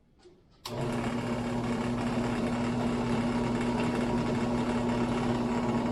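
Electric drill switched on about half a second in, its motor then running steadily at an even pitch while drilling out the rivets that hold the toy tractor's die-cast casing together.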